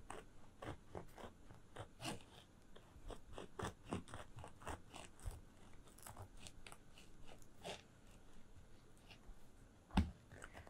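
Kitchen knife sawing through the hard top crust of a loaf of bread on a plastic cutting board: a run of irregular crunches and crackles. One louder knock comes near the end.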